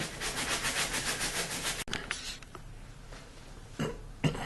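A brush scrubbing wet upholstery fabric with quick, even back-and-forth strokes, about nine a second, stopping abruptly about two seconds in. Two dull thumps follow near the end.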